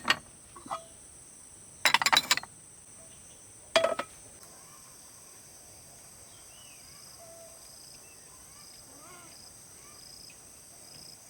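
Insects, likely crickets, chirping steadily in evenly repeating pulses from about four seconds in, after two short loud noises.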